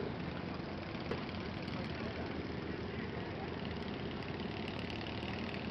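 Small garden tractor engine running steadily.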